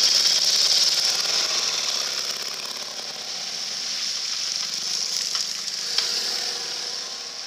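Water hissing and splashing as motorcycles ride through a shallow ford: loudest at the start as one bike ploughs through, easing off, then building again as a second bike crosses. A sharp tick about six seconds in.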